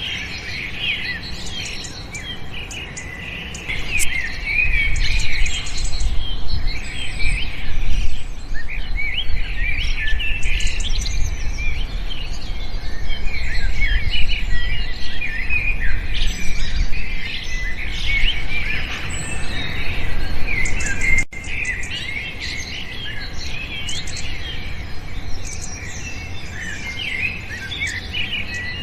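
Many small birds chirping and twittering at once, a dense chorus of short, high, overlapping calls. Under it a low rumble swells about four seconds in and drops away abruptly at a brief break about twenty-one seconds in.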